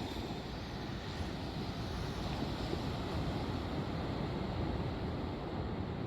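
Steady low rumble and hiss of a vehicle driving along, heard without a break.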